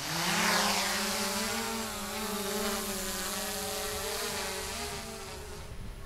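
Small quadcopter drone's rotors spinning up for take-off: a buzzing whine that starts suddenly, rises briefly in pitch, then holds steady and grows a little fainter near the end as the drone climbs away.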